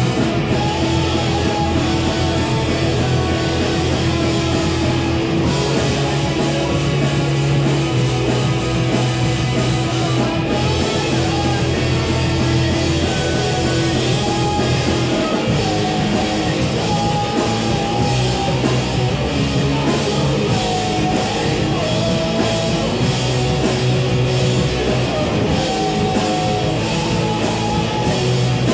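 A live indie-punk rock band playing a song: electric guitars over bass, with a drum kit beating steadily underneath.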